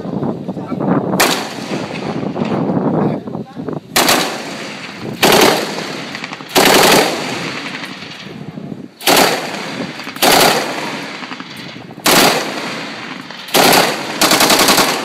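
A tank's coaxial machine gun firing about nine short bursts, one to two seconds apart.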